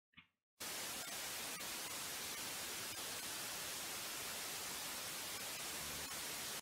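Television static sound effect: an even white-noise hiss that starts abruptly about half a second in and cuts off sharply at the end, with a few faint ticks in it.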